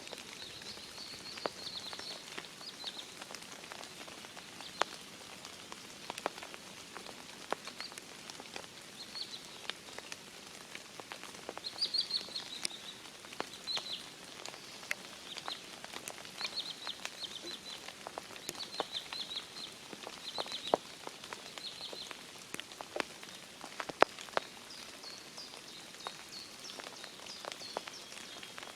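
Rain falling, with many scattered sharp drop taps over a steady hiss. A songbird sings short, high, repeated phrases through it.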